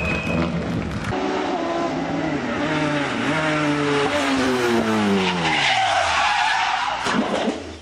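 Race car engine revving hard and climbing in pitch through a few quick gear changes, then falling steadily in a long sweep as the car slows. Near the end, a loud tyre skid as the car slides sideways.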